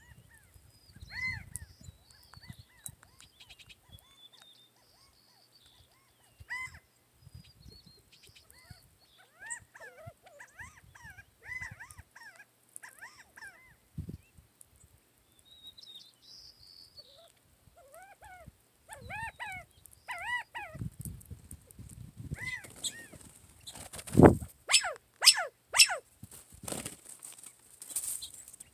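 Quail and small birds calling in short, repeated notes, some in quick runs, with higher chirps in between, over scattered low thumps. A few seconds before the end comes a run of sharp clicks or knocks, the loudest sound here.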